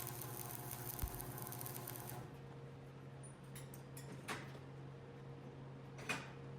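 Stick-welding arc from a United Alloys Supertrode electrode crackling and hissing during a vertical-up weld, then cutting off suddenly about two seconds in as the arc is broken. A steady electrical hum stays underneath, and a few sharp clicks follow.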